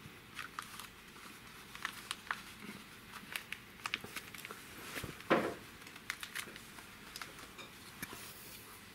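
Clear plastic file-folder collar crinkling and clicking as it is handled and turned around a cat's neck: a run of short, irregular crackles, with one louder rustle about five seconds in.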